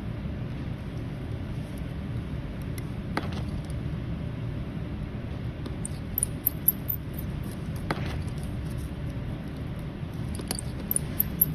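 Light clicks and small metallic ticks of tools handling a watch's case and movement parts, over a steady low hum. The ticks come in two quick clusters, about six seconds in and near the end.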